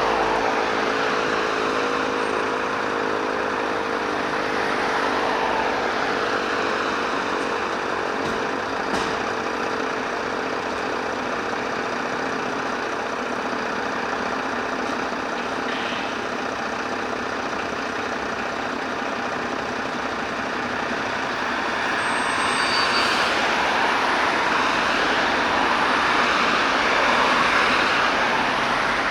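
Fire engines running and moving off, heavy diesel vehicle noise with tyres on the road. A tone slides slowly down over the first several seconds, and the noise grows louder near the end as a vehicle comes close.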